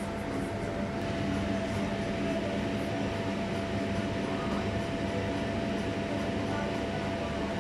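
A steady drone from a running kitchen appliance, with a constant hum and a thin held tone over it.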